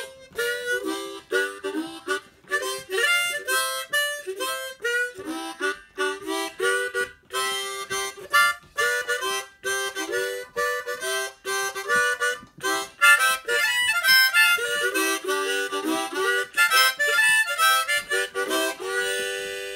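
Harmonica playing a quick tune of short notes and chords as dance music.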